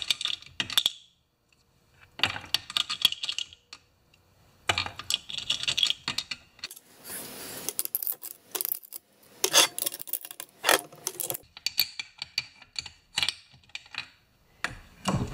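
Small hard lumps of dried fuel residue rattling and clicking inside a chainsaw's plastic fuel tank as it is handled and dug out. The clatter comes in four or five short bursts with quiet gaps between.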